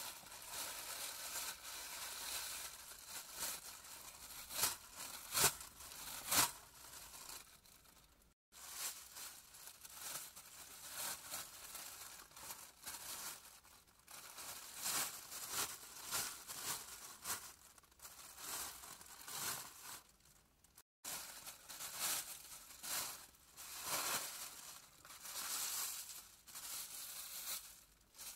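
Plastic bag being crumpled and rubbed: irregular crinkling and rustling, with a few sharp, loud crackles about five to six seconds in. The sound breaks off for a moment twice.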